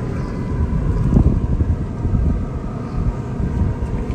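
Wind buffeting the microphone: a low, uneven rumble that swells a little about a second in.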